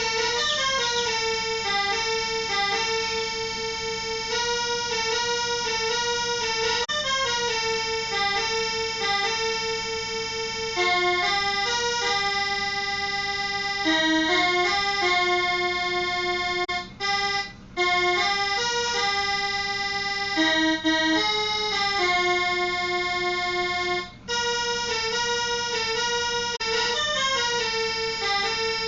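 Instrumental ringtone tune: an accordion-like melody moving in stepping notes over a steady low drone, with a few very brief cuts in the sound in the latter half.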